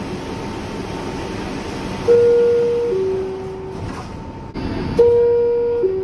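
R62A subway car door chime sounding twice, a two-note descending ding-dong about two seconds in and again about five seconds in, over steady train and station rumble. The chime signals that the doors are about to close.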